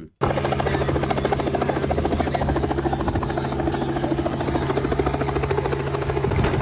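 Helicopter running close by, its rotor beating in a rapid, steady pulse. It cuts in abruptly just after the start.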